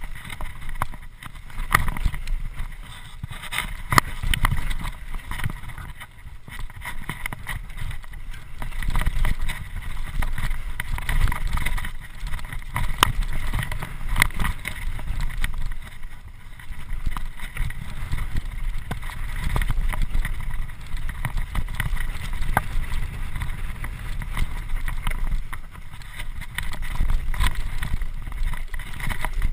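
Mountain bike descending a rough dirt singletrack, heard from an onboard camera: wind rumbling on the microphone and tyres running over dirt, with frequent clicks and knocks as the bike jolts over bumps.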